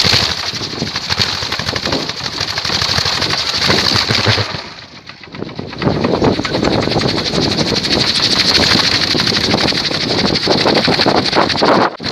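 A large wooden kolecer, a Sundanese wind-driven propeller on a bamboo pole, spinning fast in the wind with a loud rumbling whir of rapidly repeating blade beats. It fades briefly about five seconds in, then picks up again.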